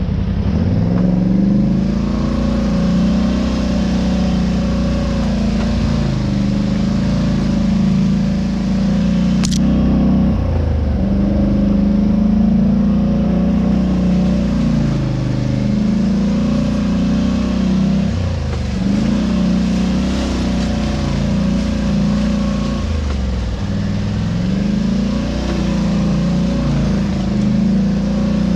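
Vehicle engine running under changing load, its revs rising and falling again and again, with one sharp click about ten seconds in.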